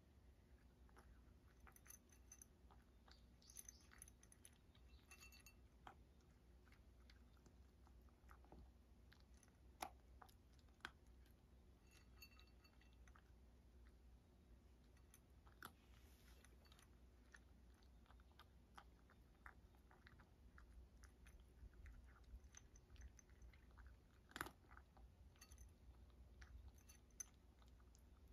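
A cat eating dry kibble from a bowl: faint, irregular crunching and chewing, with a few sharper clicks.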